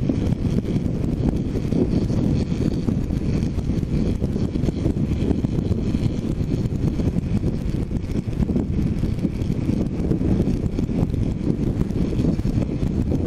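Heavy wind rush and buffeting on a helmet-mounted GoPro on a motorcycle at road speed, a steady loud rumble that covers most other sound.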